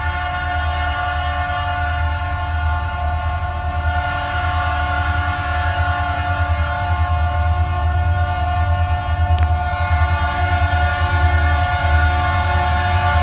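Diesel freight locomotive approaching, its air horn sounding in one long steady blast over the low rumble of the engine, growing slowly louder as it nears.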